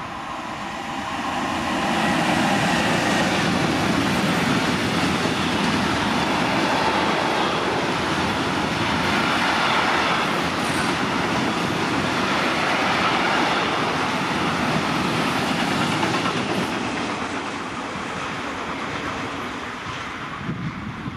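A freight train of tank wagons, hauled by an electric locomotive, passing through at speed: a steady rumble and rattle of wheels on the rails. It builds over the first two seconds, holds, and fades over the last few seconds as the train goes by.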